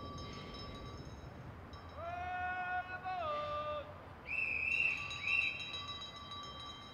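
Two short, shrill blasts of a railway guard's hand whistle, the departure signal for the steam train. They follow a longer, lower tone that dips in pitch about three seconds in.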